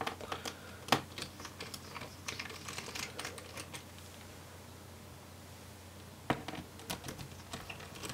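Light scattered clicks and taps of a small Torx T5 screwdriver working the screws out of a laptop's base panel, with two louder knocks, one about a second in and one a little after six seconds.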